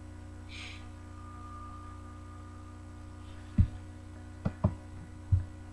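Steady low electrical hum, then four dull knocks in the second half, two of them close together: handling bumps against the webcam's recording setup.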